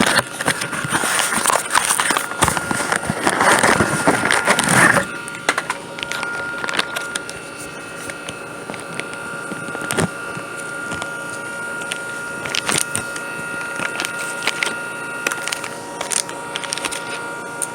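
About five seconds of loud rustling and clicking handling noise. Then the steady whine of a running air-conditioning condenser unit, with a few scattered clicks.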